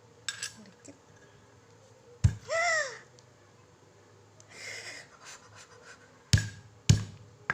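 Spices being pounded with a pestle in a mortar: three sharp knocks, one about two seconds in and two near the end half a second apart. Just after the first knock comes a short cry whose pitch rises and falls, and there is a brief hiss around the middle.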